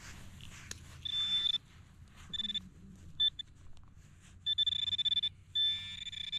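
Handheld metal-detector pinpointer beeping as it is probed around a dug hole, sounding off on a buried coin: a high held tone about a second in, a few short beeps, then fast pulsing and a steady tone near the end as it closes in on the target.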